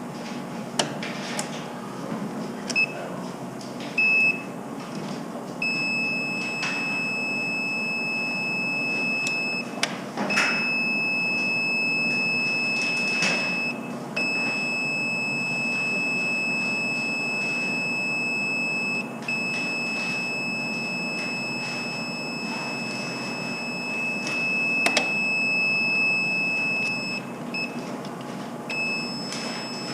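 A high-pitched electronic beep tone: two short beeps, then long unbroken tones lasting several seconds each, separated by brief gaps, with a few small clicks and knocks.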